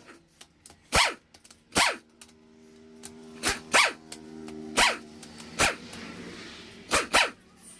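A dog barking repeatedly, about eight sharp barks spread irregularly over several seconds.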